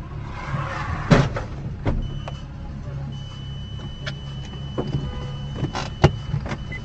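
Dashcam audio of a motorcycle crash in traffic. A car engine hums steadily, with a loud crash about a second in, as the motorcycle goes down just in front of the car. Smaller knocks and thumps follow, with another sharp knock near the end, and a steady high-pitched beep sounds from about halfway.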